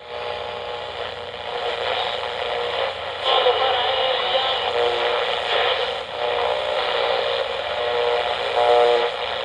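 Tinny, narrow-band radio sound: hiss with steady tones that shift every second or two, and no clear speech or music.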